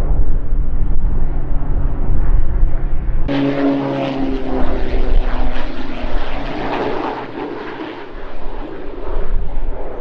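Propeller aircraft engines droning overhead, a C-130H Hercules turboprop with wind rumbling on the microphone. After a cut about three seconds in, a propeller plane passes closer, its engine hum dropping slightly in pitch as it goes by, then trailing off into a rushing noise that swells again near the end.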